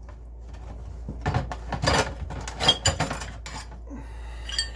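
Old metal hand tools being rummaged through in a crate, knocking and clanking together several times, then a few small ringing metallic clinks near the end.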